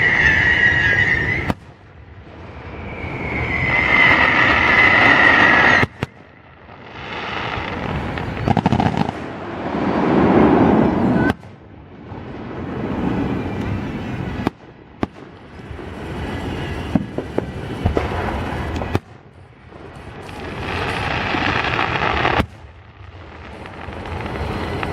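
Fireworks display: aerial shells bursting and crackling. The sound builds up over a few seconds and then cuts off sharply, again and again.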